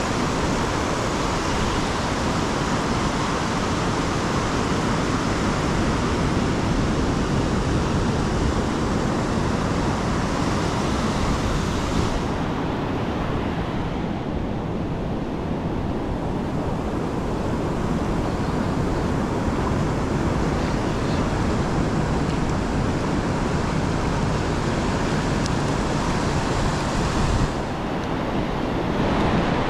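Ocean surf breaking and washing up a sandy beach, with wind rumbling on the microphone. The high hiss of the wash drops away for a few seconds about twelve seconds in, and the sound shifts suddenly near the end.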